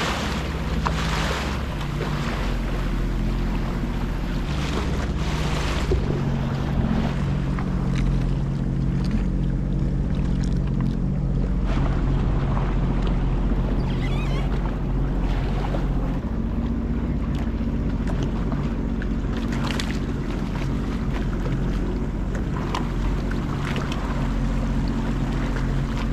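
Sea-Doo personal watercraft engine running steadily at idle, its pitch shifting slightly now and then as the craft creeps along, with wind on the microphone and water noise beneath.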